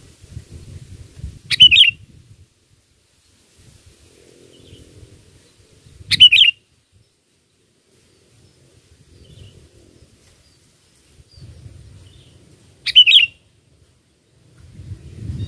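Sooty-headed bulbul (kutilang) giving three short, loud calls several seconds apart, over a faint low rumble that comes and goes.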